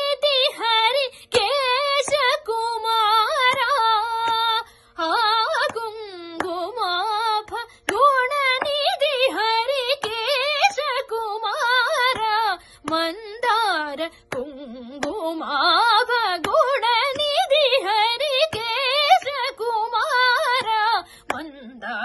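A woman's solo voice singing a Carnatic devotional song to Ganesha, running through fast, heavily ornamented melodic lines without clear words, broken by short pauses for breath.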